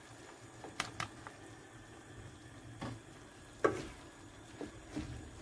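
Wooden spatula stirring chopped onion into frying minced beef in a metal pan, knocking against the pan a handful of times over a faint sizzle.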